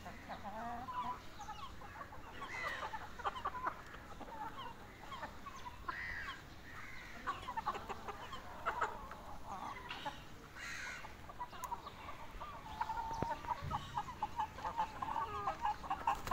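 Young chickens clucking and calling in many short, repeated notes while they feed, with a few sharp ticks among the calls.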